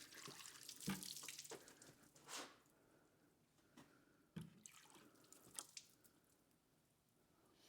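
Water poured and splashing faintly onto a freshly sawn spalted maple slab, in irregular splashes that are heaviest in the first couple of seconds and fall off to scattered splashes, with a couple of soft thumps.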